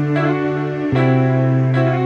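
Instrumental background music with sustained notes; a new chord comes in about a second in.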